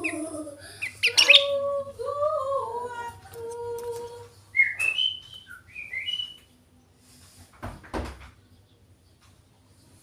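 Sooty-headed bulbul (kutilang) calling: a run of whistled, sliding notes, then a few short high chirps, after which it falls quiet. A dull thump sounds about eight seconds in.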